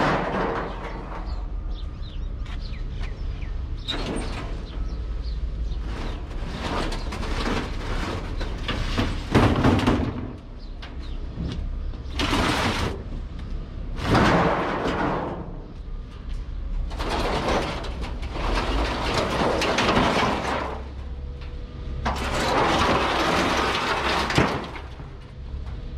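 Scrap sheet-metal guttering and steel roofing being dragged off a load and dropped. There are repeated long scraping slides of a second or more each, with a few sharper clangs, over a low steady rumble.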